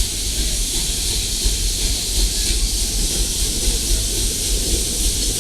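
Steam locomotive hissing steadily, over a low rumble.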